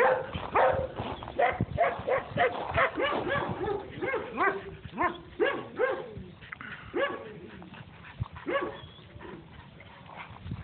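Dogs barking repeatedly: a quick run of barks, several a second, for about the first six seconds, then fewer barks spaced further apart toward the end.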